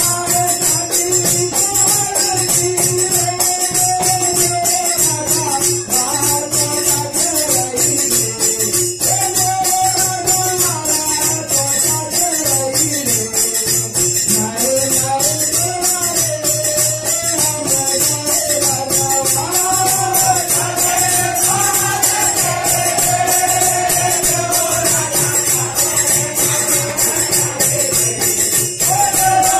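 Devi jas devotional folk singing: a man's voice sings a slow melody with long held notes over fast, steady jingling hand percussion and a sustained low held note.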